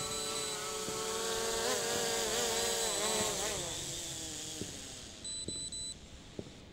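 SJRC F11s 4K Pro quadcopter's propellers buzzing as it hovers low and comes down to land on a low battery. The pitch wavers, then drops and fades away about four to five seconds in.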